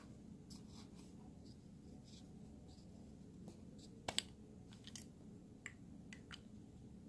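Faint clicks and light scraping of a fountain pen being handled and unscrewed, its barrel turning on the threads of the metal section, with a sharper double click just after four seconds in. A steady low hum sits underneath.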